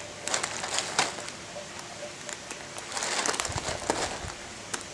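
Whipped-cream pie squished against a face and cream being rubbed off hands: wet crackling and squelching with scattered clicks, a little busier around three seconds in.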